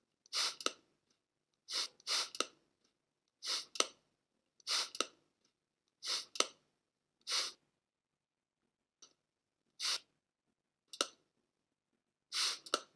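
Spray bottle being sprayed over and over: short hissing squirts, roughly one every second and a half and some in quick pairs, with a longer pause near the middle.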